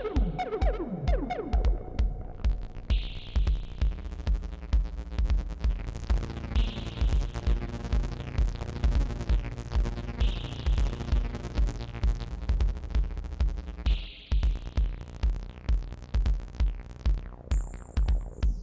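Electronic music with a steady drum-machine kick about twice a second under sustained synthesizer chords, with a short burst of hiss every few seconds and a high hissing sweep near the end.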